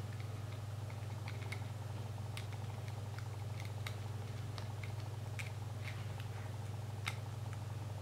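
Small scattered clicks and taps of fingers handling a smartphone's plastic frame and a replacement charging-port flex board while fitting it in, over a steady low hum.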